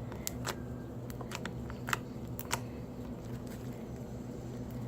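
Homemade slime being stretched and squeezed by hand, giving a dozen or so scattered small clicks and pops over a steady low hum.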